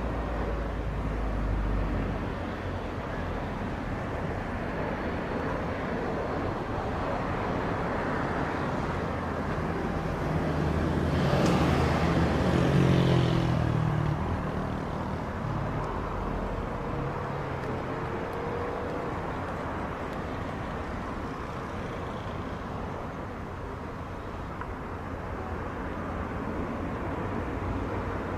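Distant Air Transat Airbus A321 jet on short final and landing, heard as a steady wash of jet engine noise mixed with outdoor air. The sound swells for a few seconds around the middle, near touchdown.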